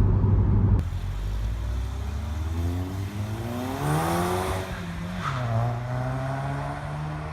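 Mk7 VW GTI's 2.0-litre turbo four-cylinder, with a catless downpipe and a Vibrant 17930 resonator in the stock catback, accelerating: the exhaust note climbs in pitch, drops at a gear change about five seconds in, then holds steady. A loud low rumble cuts off suddenly about a second in.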